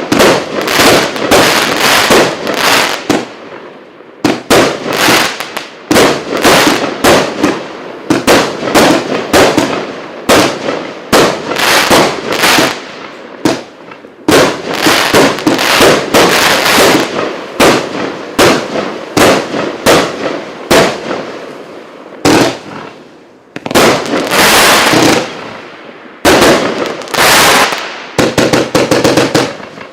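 Multi-shot consumer fireworks battery (a cake of over 200 shots) firing: a continuous barrage of launch thumps and aerial bursts with crackling tails, with a few short lulls and a faster rapid-fire run of shots near the end.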